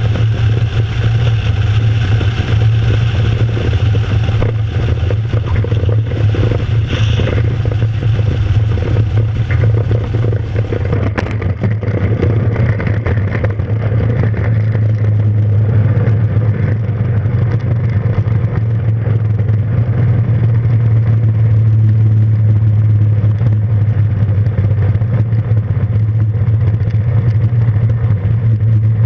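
The Kitfox's Rotax 582 two-stroke twin engine runs steadily at low power with a deep hum. A rushing airflow noise fades after a single click about eleven seconds in, as the plane moves along the runway.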